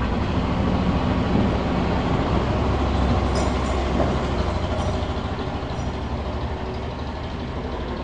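A low, noisy rumble that swells over the first few seconds and then slowly fades.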